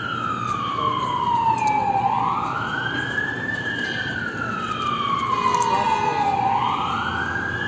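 Fire truck siren on a slow wail: the pitch climbs quickly, then sinks slowly, about once every four to five seconds, with climbs about two seconds in and again near the end.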